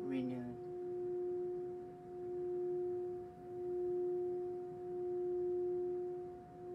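Metal singing bowl rubbed around its rim with a mallet, singing a sustained two-note tone that swells and fades slowly about every second and a half.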